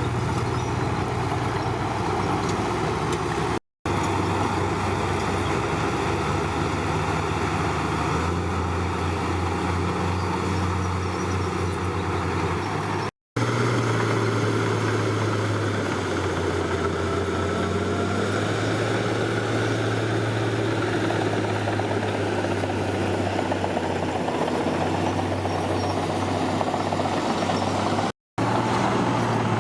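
Crawler bulldozer's diesel engine running steadily, its low note shifting in pitch from time to time. Three brief gaps of silence break it up.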